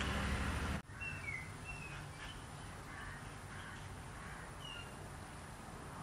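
A steady low rumble cuts off suddenly about a second in, giving way to quieter outdoor ambience in which birds call with a few short, high, falling chirps.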